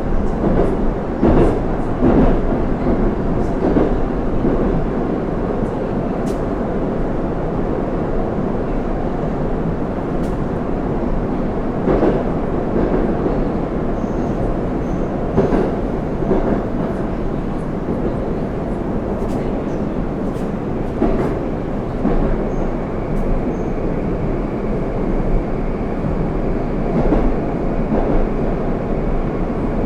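Inside a moving 81-760/761 'Oka' Moscow Metro car: a steady rolling rumble of the train running in the tunnel, with scattered clacks of the wheels over rail joints. A faint high whine sets in about two-thirds of the way through.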